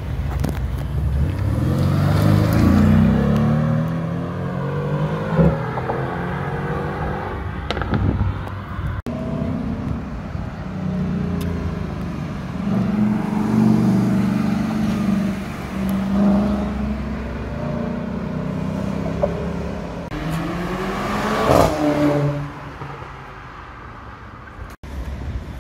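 Supercar engines accelerating past on a street: a Mercedes-AMG GT R's twin-turbo V8 pulls away with rising pitch, then, after a cut, an Audi R8 and other cars drive by, with the loudest pass-by a little past two-thirds through. Near the end only quieter passing traffic is heard.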